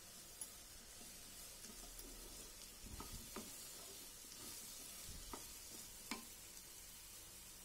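Cubes of pumpkin sizzling faintly in oil in a kadai, while a wooden spatula stirs them and scrapes against the pan with a few light knocks.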